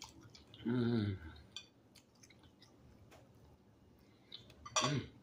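A person eating with a fork from a plate: a short hummed "mm" of enjoyment about a second in, another brief voiced sound near the end, and faint clicks of the fork and chewing in between.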